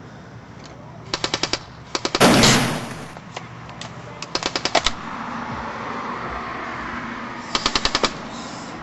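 Airsoft gun firing in short full-auto bursts: rapid sharp shots at about a dozen or more a second, in four bursts. A very loud burst of noise lasting about a second comes right after the second burst.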